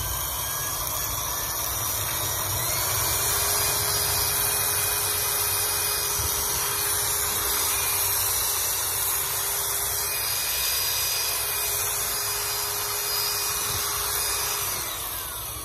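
Makita DA3000R corded angle drill running free at full speed: a steady motor whine that climbs to top speed about two and a half seconds in and winds down just before the end. The motor runs smoothly.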